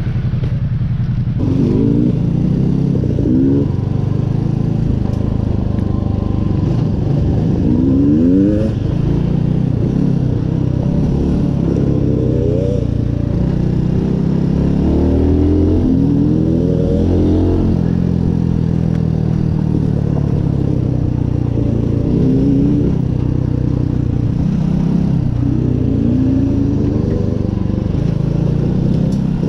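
Mutt Motorcycles single-cylinder motorcycle engine being ridden off-road, revving up in repeated rising surges and easing off between them as the throttle is worked.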